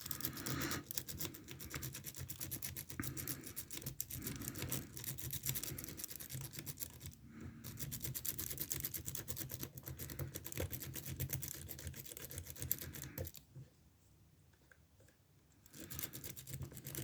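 A metal rake pick being scrubbed rapidly in and out of the pin-tumbler keyway of an older ASSA padlock's Ruko oval cylinder, under a tensioner. It makes a fast, scratchy run of clicks that stops for about two seconds near the end and then starts again. The raking does not set even a false set.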